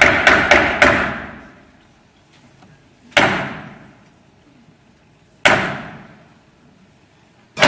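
Theatre curtain knocks, the French 'trois coups' struck on a wooden stage floor: a quick run of heavy knocks ends about a second in, then two single slow knocks follow a little over two seconds apart. Each knock rings away in a large reverberant hall, a signal that the performance is about to begin.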